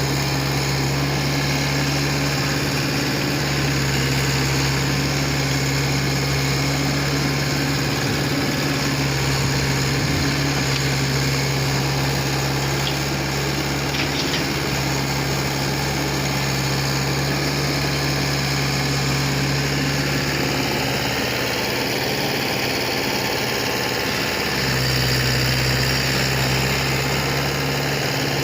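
JCB 3DX backhoe loader's diesel engine running steadily. Its low note drops off for a few seconds near the end, then comes back stronger.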